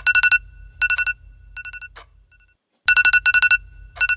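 iPhone alarm tone playing: a rapid electronic beeping in groups that fade away, the pattern starting over about every three seconds.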